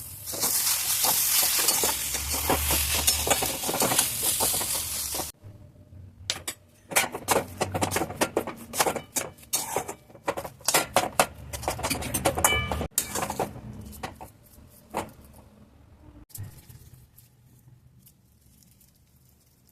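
Vegetable cutlets sizzling in hot oil in a frying pan, then a metal spatula or other utensils clattering and clinking against the pan and dishes for several seconds. The clatter thins out and dies away about two-thirds of the way through.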